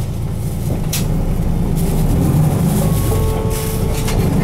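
On-board running sound of a Nissan Diesel Space Runner RM city bus under way: its 6.9-litre FE6F six-cylinder diesel engine drones steadily over road noise, with a click about a second in.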